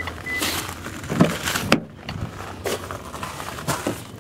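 Rustling handling noise with two sharp clicks about a second and a half in, as a minivan's front door is unlatched and swung open.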